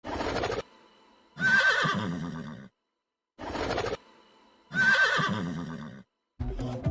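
A horse whinnying twice, each whinny a wavering call of a bit over a second, each preceded by a short burst of sound. Near the end a different sound with rapid sharp clicks begins.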